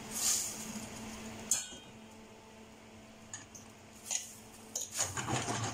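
Spaghetti dropped into hot clam stock in a stainless steel pan with a short splash and hiss, then a metal fork clinking and scraping against the pan as the pasta is stirred, busiest near the end.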